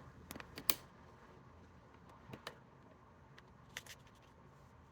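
A few light, sharp clicks and taps, in small clusters, from small jewelry tools and parts being handled on a work surface.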